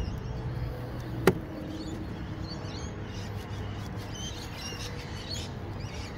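Wild birds chirping faintly, with a low steady hum underneath and a single sharp click about a second in.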